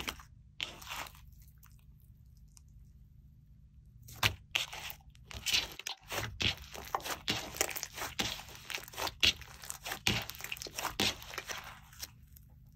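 Hands kneading and squeezing a large lump of glittery slime with many things mixed in, making a dense run of small crackles and pops. There are two short squishes at the start, then a pause of about three seconds before the crackling runs on steadily.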